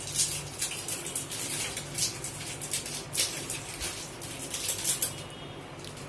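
Spoon scooping biryani masala powder from its container: short, irregular scratchy scrapes, several a second.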